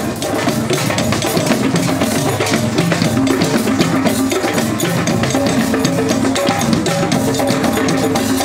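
Drum circle: many hand drums and other percussion, with a drum kit, playing together in a steady, continuous rhythm.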